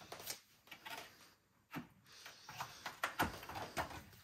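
Light clicks and rustling of a grey flat ribbon cable and its plastic connector being pulled free and lifted out of an open Macintosh II case, with a cluster of sharper clicks near the end.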